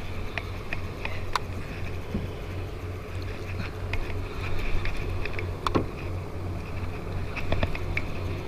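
Large conventional fishing reel being cranked while playing a hooked fish: scattered light clicks and ticks from the reel over a steady low hum.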